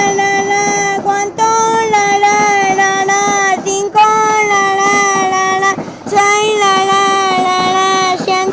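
FEVE series 1600 diesel locomotive's horn sounding a run of long single-pitch blasts, each one to two seconds, with brief breaks between.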